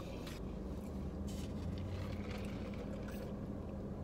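Steady low hum inside a parked car's cabin, with a few short, soft sounds of someone chewing a fried chicken sandwich.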